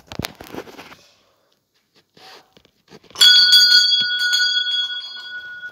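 A hanging metal temple bell (ghanta) struck once about three seconds in. It rings on with several steady high tones that slowly fade, after a few light knocks and rustles of handling.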